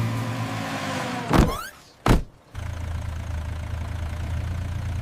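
Animated-show sound effects: a car engine idling with a steady low hum, cut about a second and a half in by a quick whoosh and then a sharp hit, after which the engine hum starts again.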